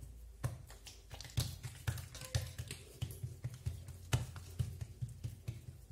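Oiled hands patting and spreading msemmen dough flat on a tiled counter: a run of irregular taps and soft slaps.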